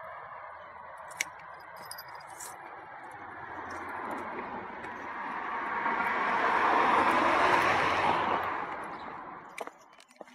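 A car passing by: a rushing noise that swells slowly, is loudest about seven seconds in, then fades away. A brief sharp click comes about a second in.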